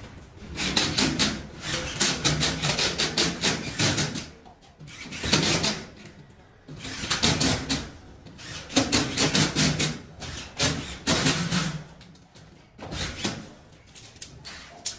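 Power screwdriver driving screws through a plaster ceiling board into the metal ceiling frame, in repeated short runs of about a second each with brief pauses between them.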